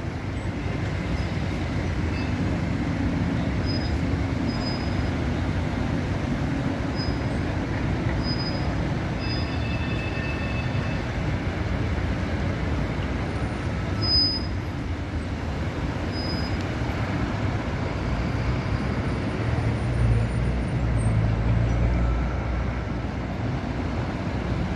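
Steady road traffic of cars and buses moving around a busy roundabout, with a few short high squeaks scattered through it. A deeper low rumble swells about twenty seconds in as a heavy vehicle passes close.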